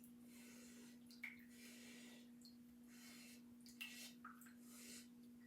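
Faint running tap water and rinsing as a Chalk Couture silkscreen transfer is washed of its paste, under a steady low electrical hum.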